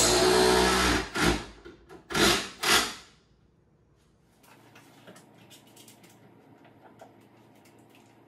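A drill driving a screw into the wood cabinet runs for about a second, then gives three short bursts as the screw is snugged down. Faint small knocks follow.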